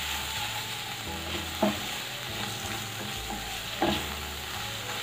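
Spice masala sizzling in hot oil in a non-stick kadhai while a wooden spatula stirs and scrapes it around the pan. Two brief louder scrapes come about a second and a half in and again near the end. The masala is being roasted in the oil.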